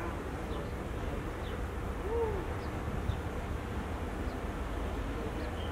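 Low steady rumble of a diesel locomotive approaching slowly in the distance, with birds calling over it: one arched coo about two seconds in and a few faint high chirps.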